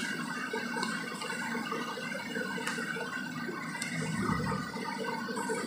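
Marker pen scratching across chart paper in short strokes while writing, over a steady room hiss.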